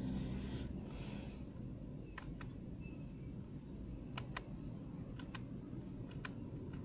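Laptop mouse-button clicks, several in quick pairs, over a low steady background hum.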